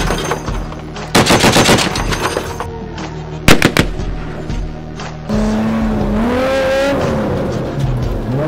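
Fully automatic machine gun firing: a long burst of about a second and a half, then a short burst of two or three shots about two seconds later. About five seconds in, the sound changes abruptly to a steady truck engine revving, rising and falling in pitch.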